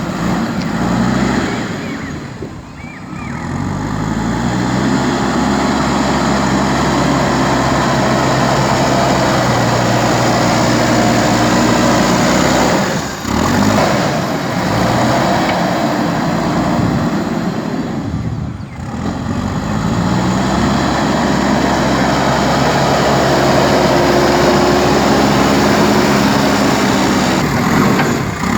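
Backhoe loader's diesel engine working under load. Its note drops briefly several times and then climbs back up as it revs.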